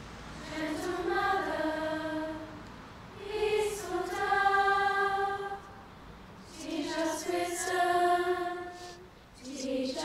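A large group of girls singing a slow hymn together, in phrases of long held notes with short breaks for breath between them.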